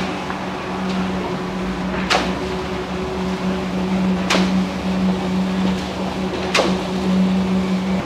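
Steady engine hum of concrete-pour machinery, with a sharp knock about every two seconds, typical of a concrete pump's strokes pushing concrete through the delivery pipeline.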